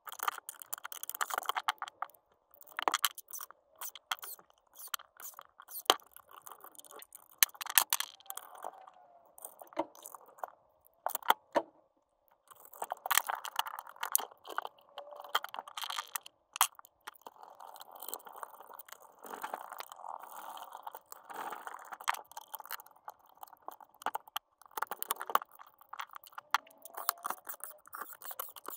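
Hands handling and fitting the plastic and metal parts of a dismantled cordless circular saw: irregular clicks, small knocks and scrapes of parts being set down and pushed together, with rustling in between.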